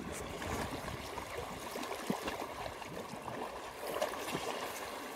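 Pond water splashing and sloshing as a group of orphaned elephant calves swim and wrestle in it, with a couple of sharper splashes about two and four seconds in.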